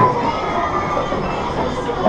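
Busy amusement arcade din: electronic game machine sounds and tones over a crowd's hubbub, with two falling electronic tones just at the start.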